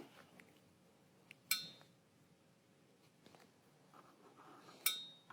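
Two sharp clicks, each with a short metallic ring, about three seconds apart, over faint room tone.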